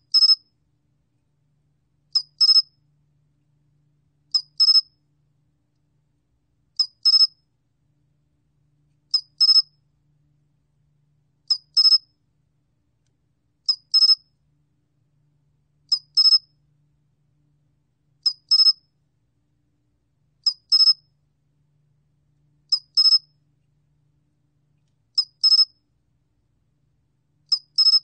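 솔귀뚜라미 (sol-gwitturami) cricket calling, recorded at 21 °C: short, high chirps, each a quick double pulse, repeated evenly about every two and a half seconds.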